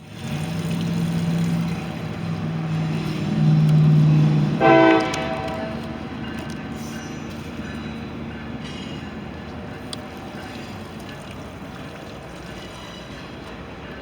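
Mercruiser 3.0 four-cylinder sterndrive engine running on test. It is loud and steady for the first few seconds and rises a little before a short, sharp tonal blast about five seconds in. It then settles to a steadier, quieter run.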